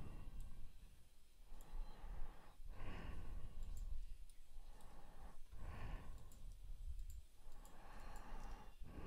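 A person breathing slowly into a close microphone, a soft breath about every three seconds, with faint computer mouse clicks in between.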